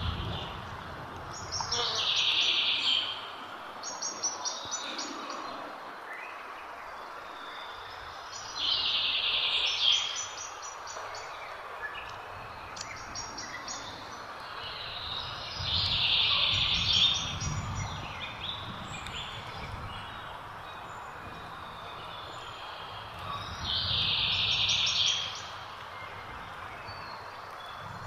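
A bird repeating a short, high, fast-trilled phrase four times, each about a second and a half long and about seven seconds apart, over steady outdoor background noise.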